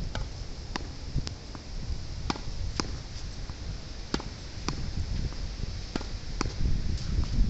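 Tennis ball being hit against a practice wall: a string of sharp pops about every half second, over a low rumble of wind buffeting the microphone.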